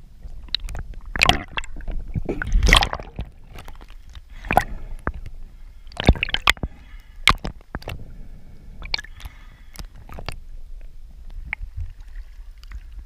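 Seawater sloshing and gurgling around a camera as it dips in and out at the surface, with irregular splashes and knocks.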